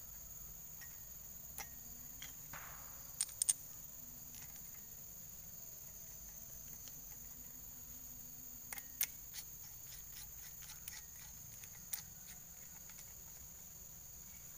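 Scattered light metallic clicks and taps as a steel brush-cutter blade and its retaining nut are handled and fitted onto the cutter head, over a constant high trill of crickets.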